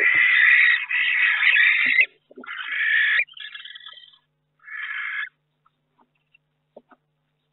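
Barn owls in a nest box giving harsh, hissing rasps. The first lasts about two seconds, then come three shorter ones, and the last about five seconds in. A few faint taps and scuffs follow near the end.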